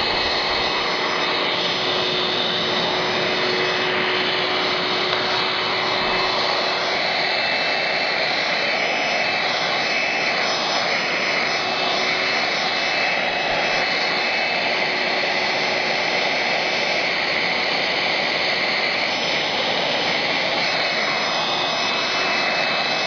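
Hoover Twist Vac handheld vacuum cleaner running steadily at full speed, a rush of air with a constant high motor whine.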